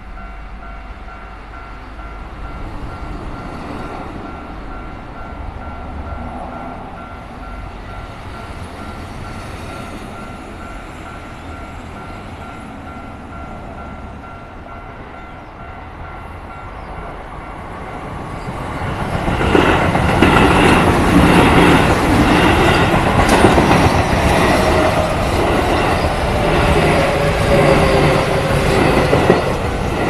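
Japanese level-crossing warning bell ringing steadily. From about two-thirds of the way through, a Keio Line electric commuter train passes over the crossing much louder: wheels clattering on the rails and a falling motor whine.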